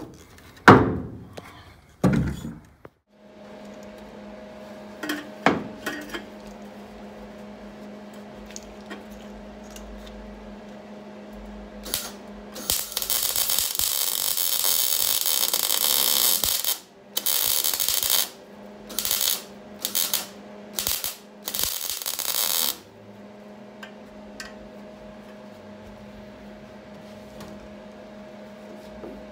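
Tack-welding an exhaust pipe to a catalytic converter: a long crackling sizzle of about four seconds, then a string of short welding bursts, each a second or less. A steady low hum runs in the gaps between welds, and a few knocks come in the first few seconds.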